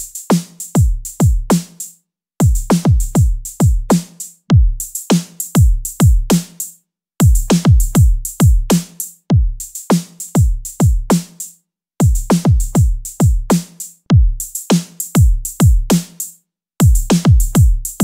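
A short drum-kit loop of kick, snare and hi-hat played over and over, about eight times, with a brief silence between repeats; the kicks thud with a falling pitch and the hi-hat ticks bright on top. The drums are dry, with the Nanopulse transient shaper switched off.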